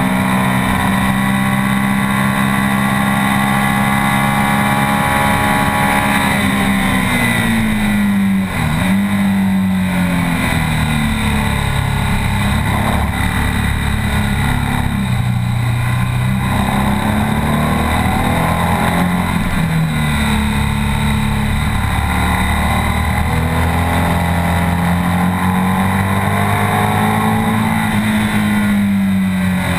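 BMW R 1200 S flat-twin boxer engine heard from on board the bike at track speed. It holds high revs, falls in pitch from about six seconds in with a brief break in the sound near nine seconds as the bike slows for a corner, rises and falls through the bends, and climbs again near the end as it accelerates.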